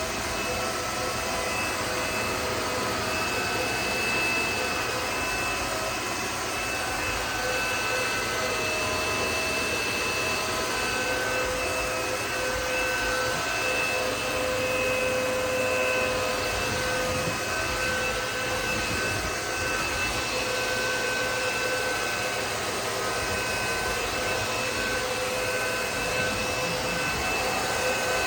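Aspiron CA-022 cordless wet-dry vacuum mop running steadily while picking up spilled coffee, wet coffee grounds and pickle juice: a constant whine with several held tones over a rushing hiss.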